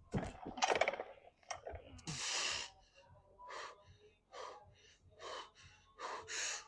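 A man breathing hard after a heavy clean and jerk set: a loud, forceful exhale at the start, then quick breaths about once a second.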